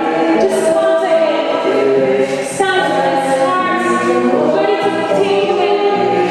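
A group of voices singing a hymn together in several parts.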